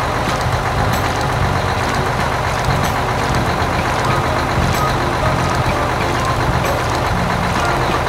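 Dump truck engine running steadily while gravel pours out of its raised tipper bed, a continuous rumble with a grainy rattle of stones.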